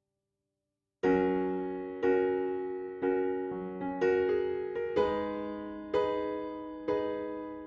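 Background music: soft piano or electric-piano chords struck about once a second, each fading before the next, starting after a second of silence.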